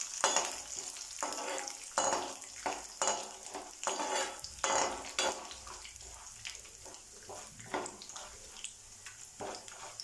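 Metal spatula scraping and stirring peanuts, roasted gram and curry leaves frying in hot oil in a metal kadai, a stroke about once a second over a faint sizzle. The strokes grow fainter in the second half.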